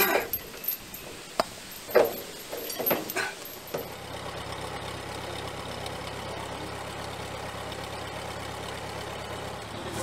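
A few short metal clanks, then about four seconds in an old Ferguson tractor's engine comes on and idles steadily.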